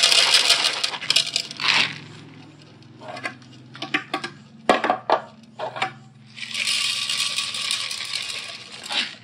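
Dry cat kibble poured from a plastic container into a cat bowl, rattling in two long pours, with scattered clicks of single pieces in between.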